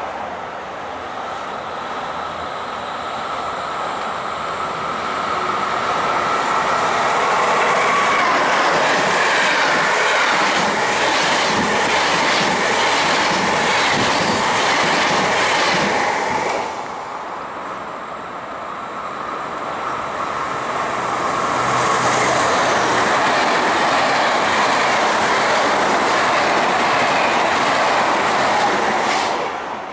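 SBB Re 460 electric locomotive and its passenger coaches passing close by, the wheels running over the rails with a steady rhythmic clatter that peaks as the coaches go past. About halfway through, the sound cuts off abruptly and another train's rolling noise builds up again, with a high hiss, until it cuts off just before the end.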